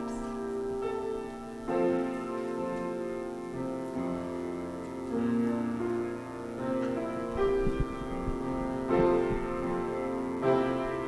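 Piano playing slow, held chords that change every second or two, as church music after the closing prayer. A few low thumps sound about seven to nine seconds in.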